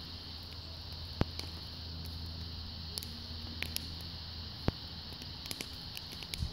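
A large dog chewing a wooden stick: sparse sharp clicks and cracks of the wood, the loudest about a second in and again near five seconds, with a cluster near the end, over a low steady hum.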